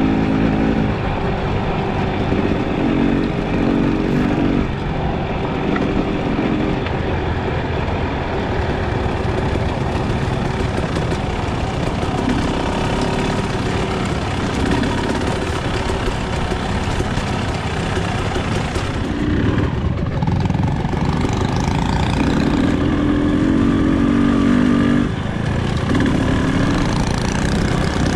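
KTM enduro dirt bike engine running while riding a trail, the revs rising and falling with the throttle.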